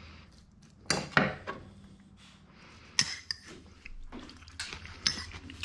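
Metal serving spoons clinking and scraping against a wooden salad bowl and a small ceramic bowl while salad is spooned out, with sharp clinks about one second and three seconds in.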